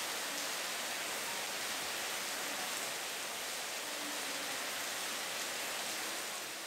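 Heavy rain pouring steadily onto a paved courtyard and the roofs around it, an even hiss with no break.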